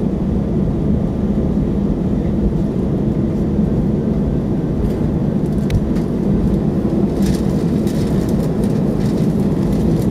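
Airbus A320 cabin noise while taxiing after landing: the engines at idle and the airframe give a steady low rumble with a constant hum.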